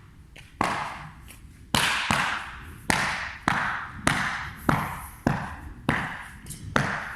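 Footsteps walking at an even pace, a sharp step almost twice a second, each echoing in a large room.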